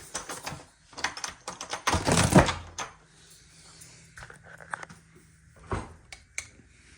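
Clicks and knocks from a door being opened, with a louder rattling thump about two seconds in, then a faint steady low hum.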